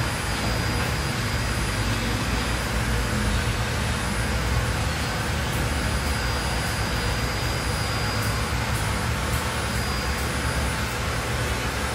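Steady drone of a running motor with rushing air, a low hum under it and a thin, high, steady whine.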